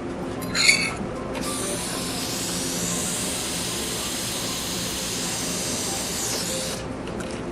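Dental equipment hissing steadily for about five seconds, an air or spray jet in the mouth, cutting off suddenly near the end; a brief high clink comes just before it.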